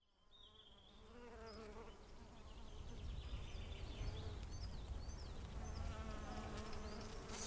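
Honey bees buzzing over an open hive, a wavering drone that fades in from silence over the first few seconds, with short high chirps above it.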